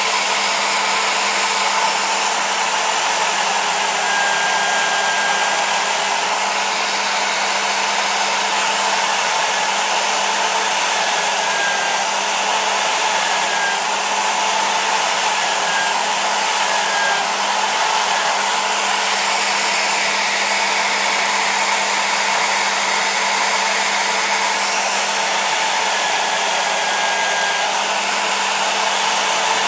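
Electric drill running steadily with a polishing wheel on it, a steel bolt held against the spinning wheel and buffed with metal polish: an even motor whir with a low hum.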